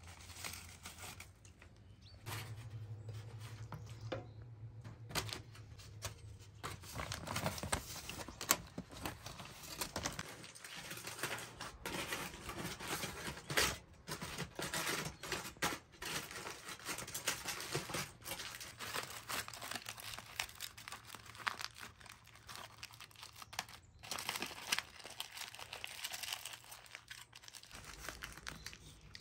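Irregular crackling and rustling, like something being crumpled or torn by hand.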